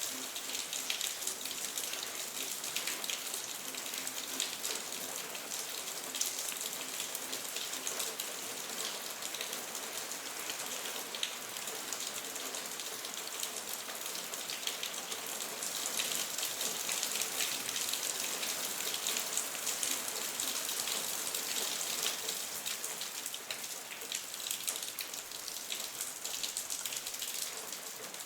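Steady rain falling: a dense hiss of drops, full of small crisp individual drop hits, growing a little heavier for a while past the middle.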